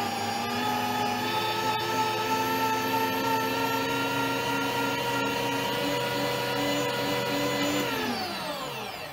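Bosch electric meat grinder running with a steady motor whine as it forces a soft object out through the grinder plate. About eight seconds in the whine falls in pitch and fades as the motor winds down.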